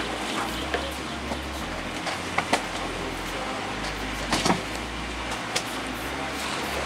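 Steady rumble and hiss of a small fishing boat out on open sea, with a few sharp knocks and clicks on board, the loudest about two and a half and four and a half seconds in.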